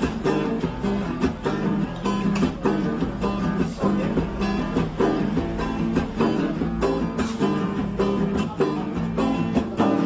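Background music led by a strummed, plucked acoustic guitar.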